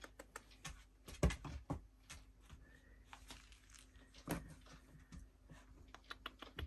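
Faint, irregular clicks and taps, with two louder knocks about a second and about four seconds in, over a faint steady low hum.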